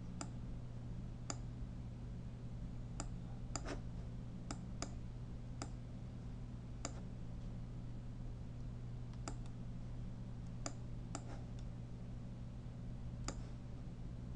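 Scattered single clicks of a computer mouse, a dozen or more at uneven intervals, over a steady low electrical hum.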